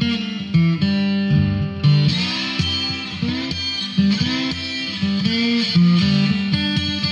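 Instrumental music led by a guitar, a run of notes changing every fraction of a second.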